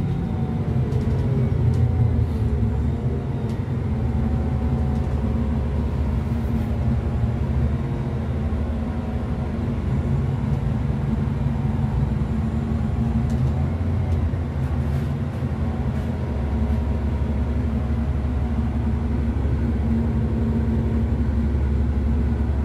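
Scania N280UB city bus running on compressed natural gas, heard from inside the passenger cabin while driving. The engine and automatic transmission drone steadily, with the pitch rising and falling as the bus speeds up and slows.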